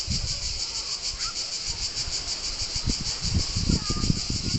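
Cicadas singing: a continuous high, rapidly pulsing buzz. A few low thumps come through near the end.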